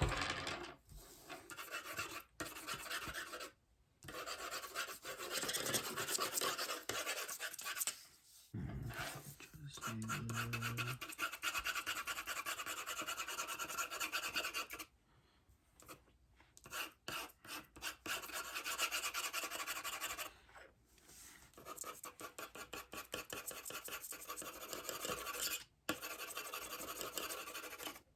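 Rapid back-and-forth colouring strokes scratching on sketch paper, in runs of a few seconds with short pauses between them.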